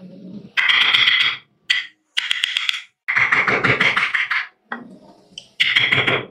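Hand carving gouge cutting into a wooden block in five separate scraping cuts, each a dense crackle of wood fibres parting that lasts about half a second to a second and a half.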